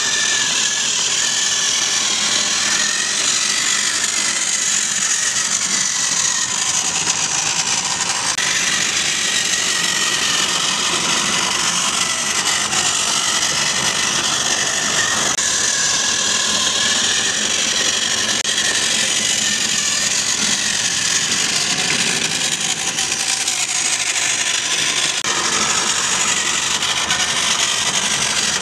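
Battery-powered Trackmaster toy tram's small electric motor and plastic gears whirring steadily as it runs along the track, with a whine that wavers slightly in pitch.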